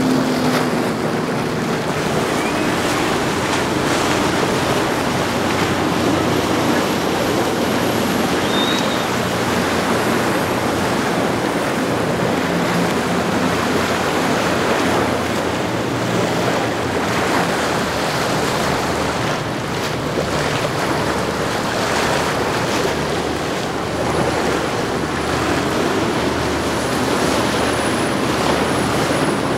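Powerboat engines running at speed, under the rush of their hull wake and spray, with wind on the microphone.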